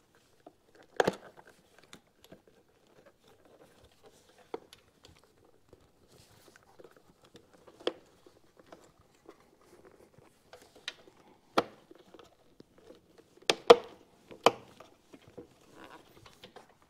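Hands working a rubber intake boot onto a motorcycle carburetor: faint rubbing broken by scattered light clicks and knocks, with a few sharper ones close together near the end.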